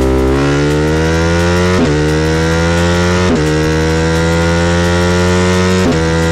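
Sport motorcycle engine pulling hard under acceleration, its pitch climbing steadily, broken by brief interruptions about two, three and a half and six seconds in, as it shifts up through the gears.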